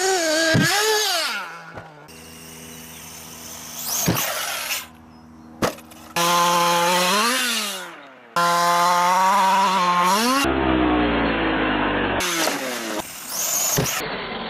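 Radio-controlled cars' motors revving hard, their high pitch climbing and falling with the throttle, in a string of short clips that cut abruptly from one to the next. There are two sharp knocks near the middle.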